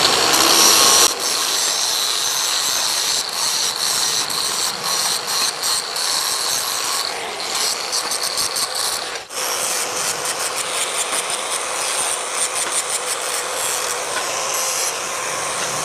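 Handheld angle grinder with a thin cutting disc cutting into a strip of hardened steel from a car leaf spring. A steady high whine runs over a harsh grinding hiss, and the sound drops out for a moment about nine seconds in.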